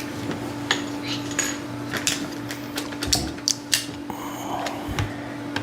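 Hard plastic toy parts clicking and clattering as they are handled, a handful of separate sharp knocks over a steady low hum.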